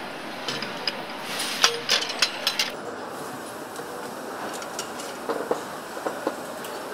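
Metal engine parts clinking and knocking as they are handled and fitted, over a steady factory hum. A cluster of sharp clinks comes in the first three seconds, then a few fainter clicks near the end.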